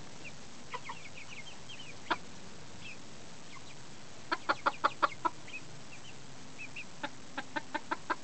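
Chickens clucking in short, sharp runs: about six quick clucks around the middle and another run near the end, with faint high chirps in between.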